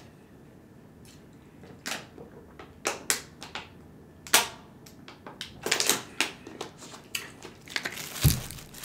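Thin plastic water bottle crackling and clicking in the hand as it is opened and drunk from, with a few gulps of water between. A dull thump near the end.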